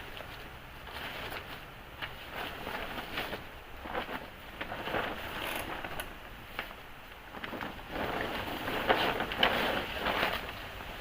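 Heavy rain pattering down in a dense rush of small drop ticks, swelling louder about eight seconds in.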